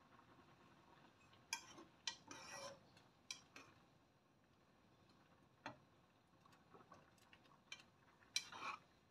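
Metal spoon stirring kolak in a saucepan: scattered light clinks and short scrapes against the pot, beginning about a second and a half in, with the loudest scrape near the end.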